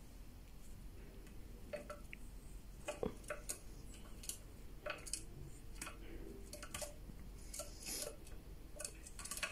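Faint, scattered light clicks and taps, sometimes a few in quick succession, from a Eurasian red squirrel moving about and handling nuts on a wooden stand.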